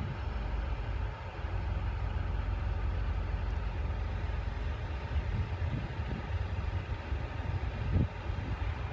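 Wind buffeting the microphone in uneven low gusts, with a bump about eight seconds in, over a faint distant rumble of yard machinery from a diesel reach stacker handling trailers.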